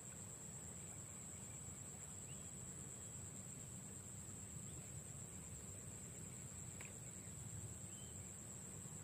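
Insects droning steadily in one unbroken high-pitched tone, over a faint low rumble.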